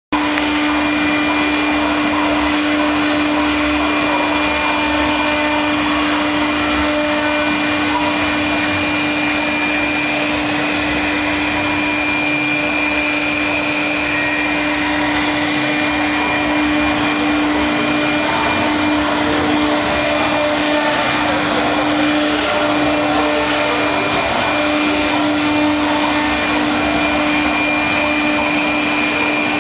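Wood CNC router running steadily: a continuous rushing machine noise with a strong, steady single-pitched hum over it.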